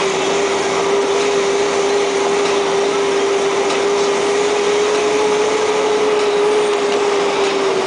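A truck running steadily along a gravel road, heard from inside the cab: a steady whine over road and gravel noise, with a few light rattles.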